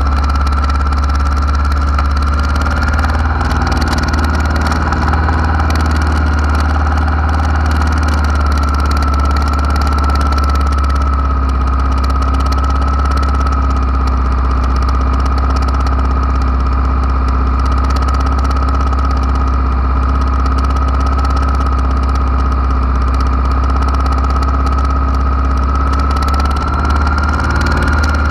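Honda Africa Twin RD04's 742 cc V-twin engine idling steadily, with a steady high-pitched whine over the low rumble.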